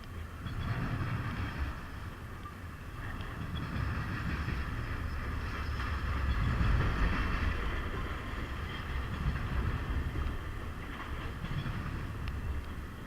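Freight train rolling past, a steady rumble of its cars' wheels on the rails.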